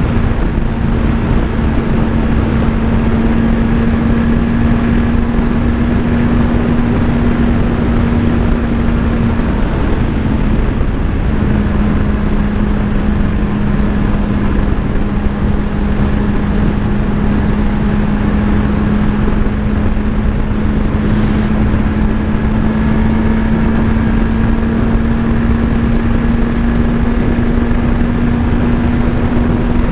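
Sport motorcycle engine running at a steady cruising pitch under constant wind rush on the rider's microphone, with a brief dip in pitch about ten seconds in before it settles steady again.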